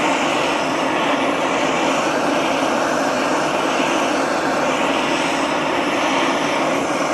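Handheld gas torch flame burning with a steady rush as it is played over a ceramic melting dish, heating the dish evenly toward red heat before it is fluxed with borax.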